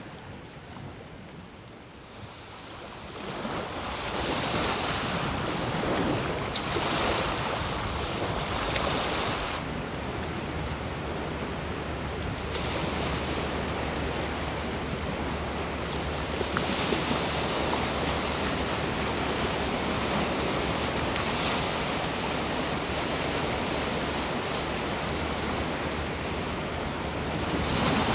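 Small waves washing onto a beach, with wind rumbling on the microphone. The wash is quieter for the first few seconds, then swells and eases every few seconds.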